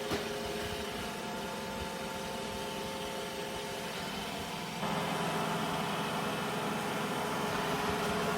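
Motor of an iRobot Roomba j7+ robot vacuum running: a steady whir with several hum tones, growing louder and brighter about five seconds in.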